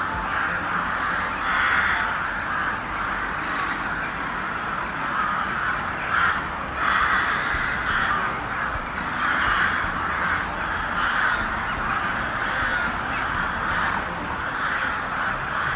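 Crows cawing over and over, harsh calls following each other closely and overlapping.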